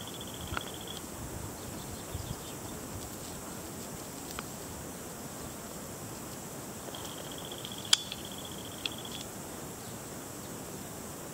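High insect trill on one steady pitch that stops about a second in, then comes back for about two seconds around the seven-second mark, over a steady hiss. A single sharp click sounds about eight seconds in.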